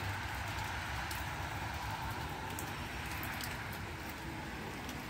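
Steady rain, an even hiss with a few faint scattered ticks.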